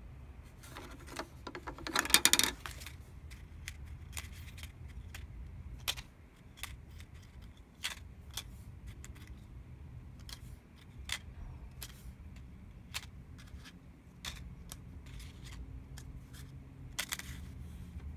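Thermal paper tickets being handled by hand: a short, loud rustling burst about two seconds in, then scattered light clicks and taps as the tickets are shuffled and laid on a desk, over a low steady hum.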